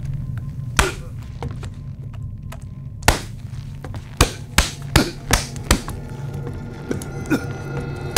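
Sharp knocks and thuds over a low sustained music drone. There are single hits near the start and about three seconds in, then a quick run of five about a third of a second apart around the middle, with more later.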